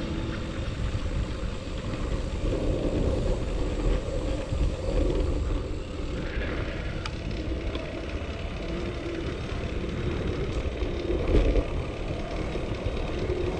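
Bicycle ride picked up by a bike-mounted action camera: wind buffeting the microphone over a low road rumble and the rattle of the bike rolling on asphalt, with a few sharp clicks about seven seconds in.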